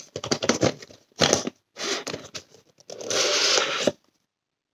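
Cardboard box being handled and opened: rustling and light taps, then a longer rubbing rush of cardboard and wrapping near the end that cuts off suddenly.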